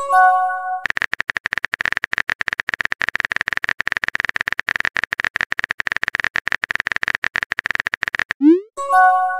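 Texting-app sound effects. A short chiming message tone opens, then a long run of rapid keyboard-typing clicks. Near the end a quick rising swoosh and the same chime mark the next message being sent.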